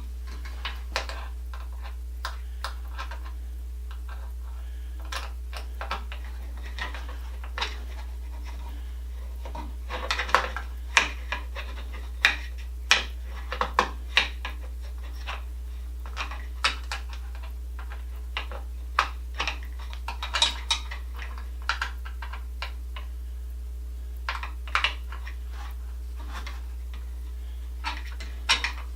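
Irregular small clicks, clinks and knocks of hand-assembly work, from metal and plastic parts and screws being handled and fitted, busiest about a third of the way in, over a steady low hum.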